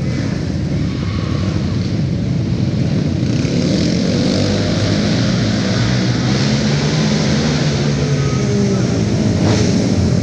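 Youth-class ATV (quad) racing engines running hard, their pitch rising and falling as the riders throttle through the track.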